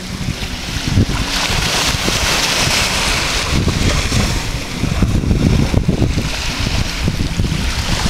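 Wind buffeting the microphone in gusts, over the hiss of small waves breaking and washing up a sandy shore.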